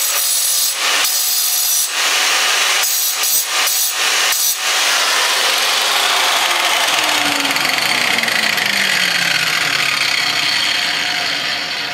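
Angle grinder with a 4.5-inch cut-off disc cutting steel angle held in a vise, the cut checking and changing a few times in the first five seconds. From about six seconds in, a steadily falling whine as the disc spins down, and the sound fades near the end.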